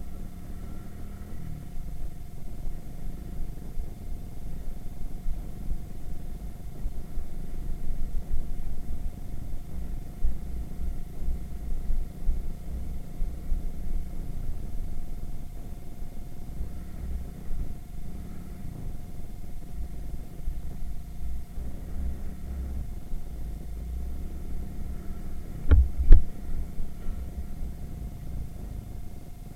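Irbis Virago 110 cc moped being ridden, heard as a muffled, uneven low rumble through an action camera's microphone. A single sharp knock comes about 26 seconds in.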